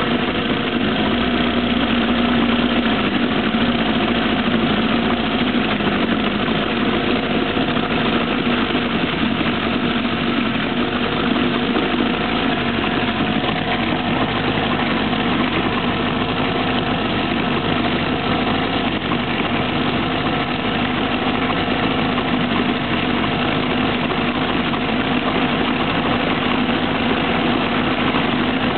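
1946 Johnson Sea Horse two-stroke outboard motor running steadily in a test tub of water.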